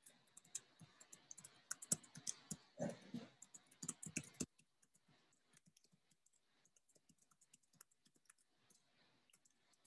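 Faint typing on a computer keyboard: a quick run of key clicks, louder for the first four and a half seconds, then lighter, scattered clicking.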